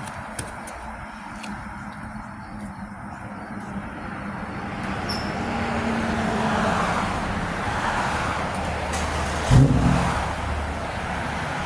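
A Toyota 3.5 V6 engine running as the car is backed out. Its sound swells about halfway through, and a brief louder sound comes near the end.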